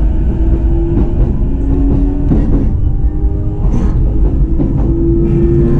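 JR East E233 series electric train running, heard inside a motor car. The wheels and traction motors give a steady low rumble with a motor whine whose pitch shifts a little, and the wheels clack over rail joints a few times.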